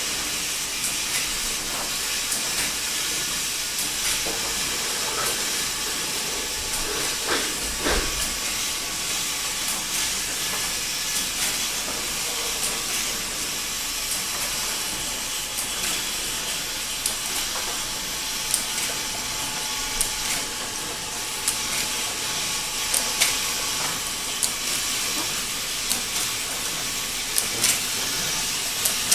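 Syrup bottle filling and capping machine running: a steady hiss with scattered sharp clicks and taps from the mechanism, and one dull thump about a third of the way in.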